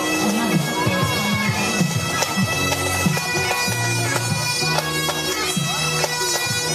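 A marching pipe band's Highland bagpipes playing a tune, with steady drones held under a changing chanter melody.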